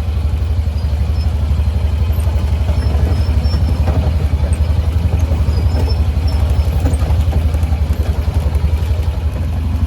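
Side-by-side UTV engine running steadily while driving along a dirt trail, with a loud, low pulsing rumble.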